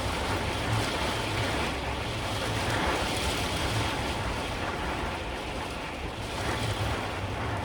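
Wind rushing over the microphone on a moving motorcycle, with a low engine hum underneath.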